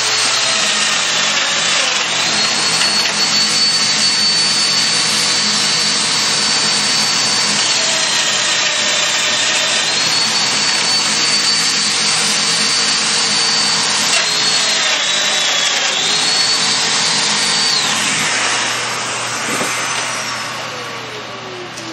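Festool Domino joiner plunge-cutting mortises in red oak boards, with its connected dust extractor running. The motor's high whine dips twice under load as it cuts, then tool and vacuum wind down with a falling whine in the last few seconds.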